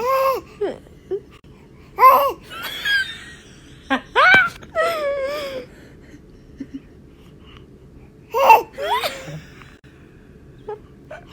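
A baby laughing and babbling in several short, high-pitched bursts with pauses between them.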